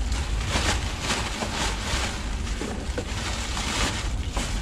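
Plastic packaging rustling and crinkling as it is handled, with irregular crackles throughout, over a steady low rumble of wind on the microphone.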